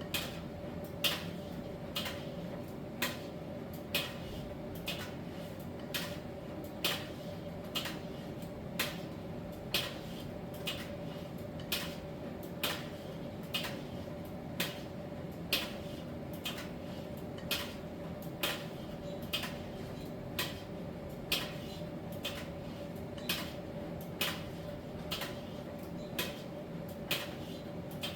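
Miele T1 heat-pump tumble dryer running in its drying phase: a steady hum with a held mid tone, and a light knock about once a second as the laundry tumbles in the drum.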